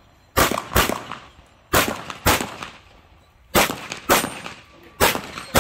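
CK Arms 2011 pistol fired in double taps: four pairs of shots, the two in each pair about half a second apart, with a pause of about a second between pairs.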